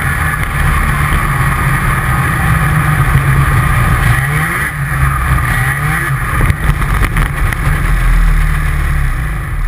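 Snowmobile engine running under way, its pitch rising a couple of times as it speeds up across the snow, with a few knocks about six to seven seconds in.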